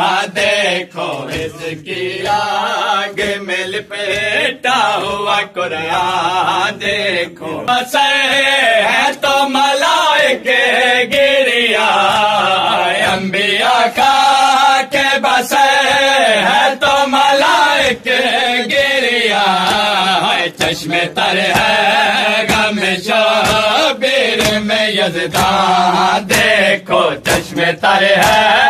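A group of men chanting a noha, a Shia mourning lament, in unison behind a lead reciter. Repeated chest-beating slaps of matam mark the chant's beat.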